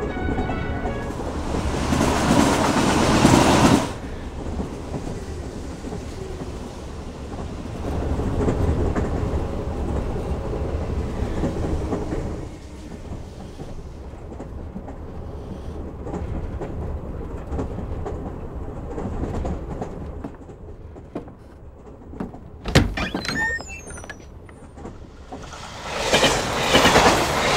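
Moving train heard from inside a carriage: a steady low rumble with wheel clatter that swells and fades. Near the end there is a sharp clunk with a brief squeak, then a louder surge of rushing train noise in the last seconds.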